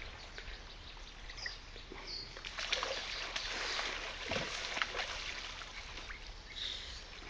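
River water splashing and sloshing around a wading angler as he plays a hooked fish close to his legs, with irregular splashes through a steady stream-like rush.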